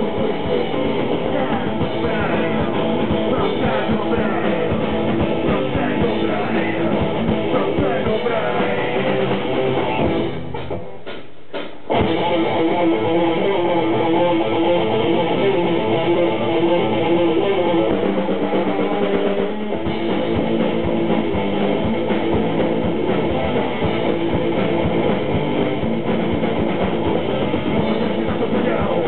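Live hardcore punk band playing at full volume: electric guitars, bass guitar and drums. About ten seconds in the low end drops out for nearly two seconds, leaving a thinner sound, then the full band comes back in.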